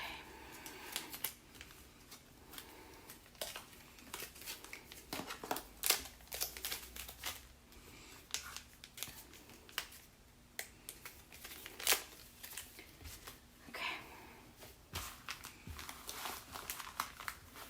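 Individually wrapped cleaning-wipe packets being torn apart along their joins, two at a time: repeated irregular tearing and crinkling of the packet wrappers.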